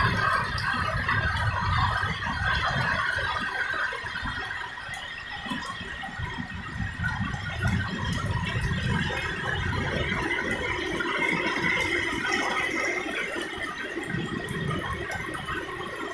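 Heavy rain falling in a steady downpour, a continuous hiss and patter, with irregular low rumbling that comes and goes.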